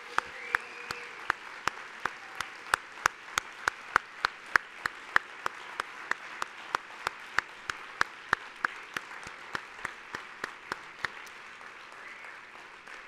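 Audience applauding, with one person's sharp, evenly spaced claps standing out above the crowd at about three a second.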